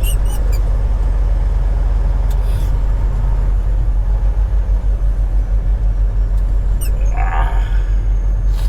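Semi truck's diesel engine running steadily while driving, a low rumble heard inside the cab, with a brief noise about seven seconds in.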